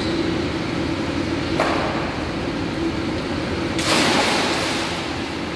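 A boy jumping into a swimming pool about four seconds in: a sudden loud splash of water that fades over about a second, over a steady low hum.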